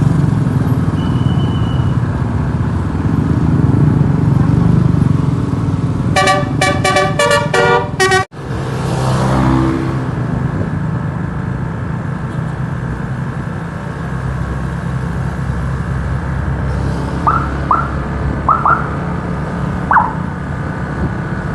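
Steady bus engine and road rumble, with a multi-tone telolet bus horn (Basuri horn module) about six seconds in, playing a quick run of short notes for about two seconds that breaks off abruptly. Several short rising chirps come near the end.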